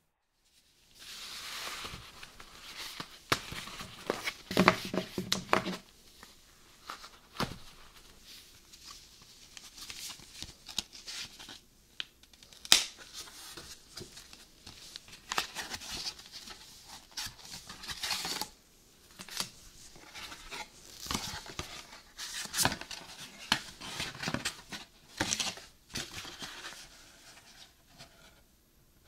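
Cardboard Happy Meal packaging and paper handled up close: tearing, rustling and crinkling in irregular bursts, with occasional sharp snaps, the loudest about 13 seconds in.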